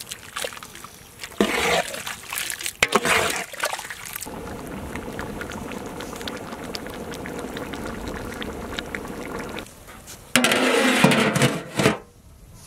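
Thick prawn gravy in a large aluminium pot being stirred with a ladle in loud sloshing bursts, with a steady bubbling simmer in between and another loud sloshing stretch near the end.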